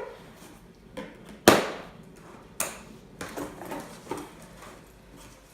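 Knocks and bumps from handling the boxed figure and its packaging, with one sharp thump about a second and a half in and a smaller knock a second later.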